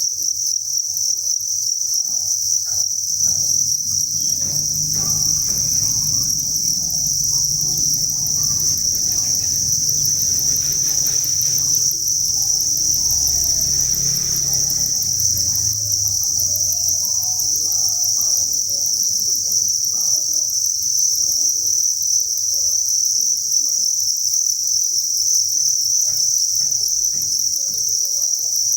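Dense chorus of many farmed crickets chirping, a continuous high-pitched trill. A low rumble runs under it through the middle, with scattered faint ticks.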